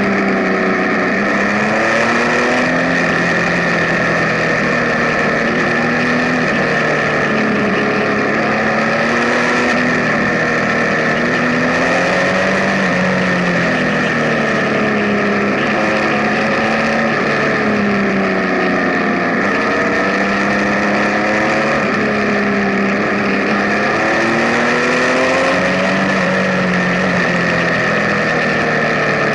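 Benelli Tornado Naked Tre 1130 motorcycle's inline three-cylinder engine running under way, its revs rising and falling repeatedly as it accelerates and changes gear, with rushing wind noise.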